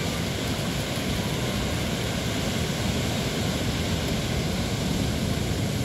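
Steady noise of ocean surf breaking on a sandy beach.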